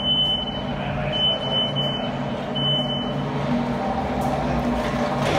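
Forklift warning beeper: a steady high beep of just under a second, repeating about every second and a half, three times, then stopping about three seconds in. A low steady hum runs underneath.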